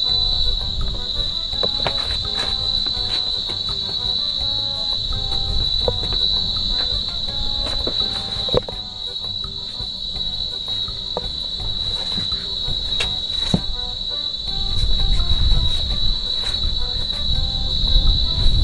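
Steady, high-pitched insect chorus buzzing without a break, over a low rumble that grows stronger near the end.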